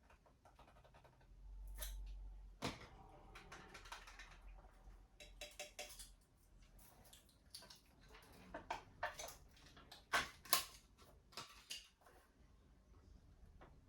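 A jar of Nutella handled close to a microphone, with a spoon scraping and tapping inside it: an irregular run of small clicks, taps and scrapes, loudest near the end.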